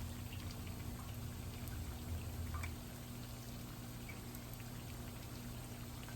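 Turon (banana and jackfruit spring rolls) frying in hot oil in a pan: a steady sizzle with scattered small pops and crackles.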